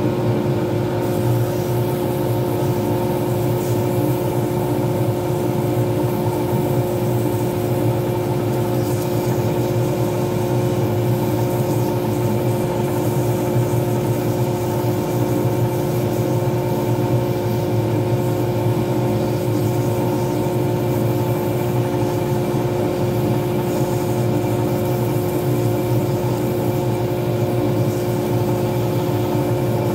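Small lathe motor running at a steady speed with an unchanging whine and hum, spinning a resin pen blank. About a second in, a sanding pad pressed against the turning blank adds a rubbing hiss.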